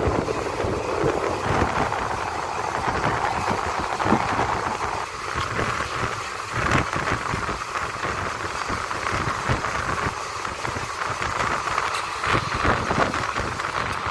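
Passenger train running at speed, heard from an open coach door: a steady rush of wind and wheel-on-rail noise with a low rumble, and a few sharp clicks.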